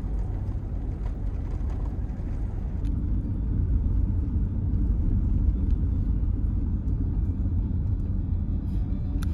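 A vehicle driving along a road: a steady low rumble of engine, tyres and wind that does not let up.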